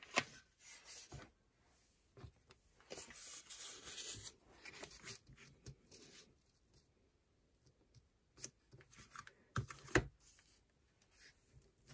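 Quiet handling sounds on a craft table: soft rustling and light taps as a small crate is set aside and a sheet of glitter vinyl is laid flat on a cutting mat, with a couple of sharper taps near the end as a clear acrylic ruler is lined up against it.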